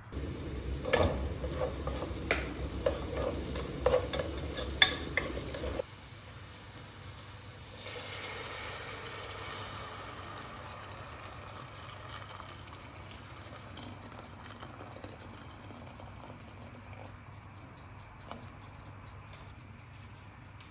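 Cooking in a pan: a utensil stirring and clinking against it for about six seconds, then a softer sizzling hiss that fades away.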